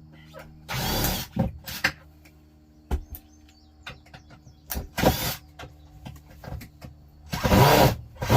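A power drill running in four short bursts, the last and longest near the end. Under the first part, a steady low hum.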